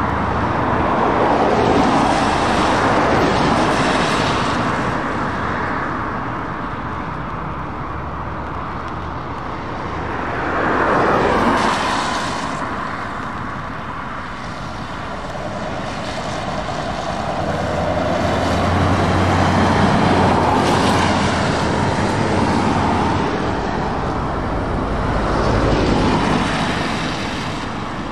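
Road traffic passing on wet tarmac: several cars go by one after another, each swelling and fading with a hiss of tyres on the wet road. In the second half a Scania 580S V8 truck passes with a steady low engine note under the tyre noise.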